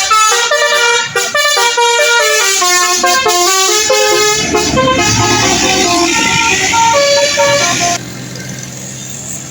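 Bus telolet horn, a multi-note air horn, playing a quick tune of short tooting notes that stops abruptly about eight seconds in, leaving a lower vehicle rumble.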